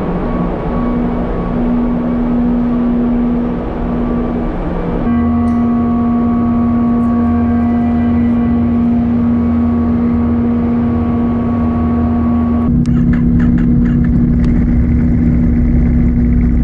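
Steady engine drone with a constant low hum. The sound changes abruptly twice, about five seconds in and again near the end, and a few faint clicks come in near the end.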